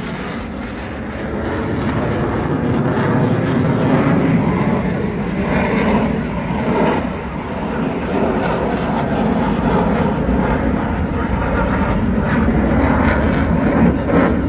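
Airplane engine running steadily as the aircraft flies during an airshow display.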